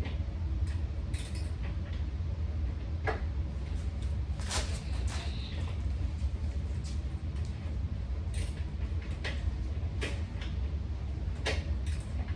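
Scattered clicks and knocks of table parts being handled and fitted during assembly, the loudest about halfway through, over a steady low rumble.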